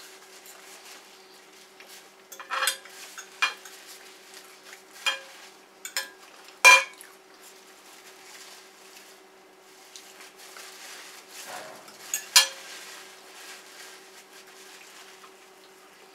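Fork and knife clinking and scraping against a plate, with about seven sharp clicks, the loudest near the middle, over a faint steady hum.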